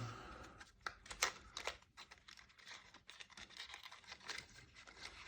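Faint handling noises: scattered light clicks and rustling, with a few sharper ticks in the first two seconds.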